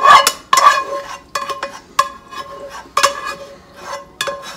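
A spatula scraping and knocking the meat mixture out of a nonstick frying pan into a slow cooker. There are repeated sharp strokes, each leaving the pan ringing briefly.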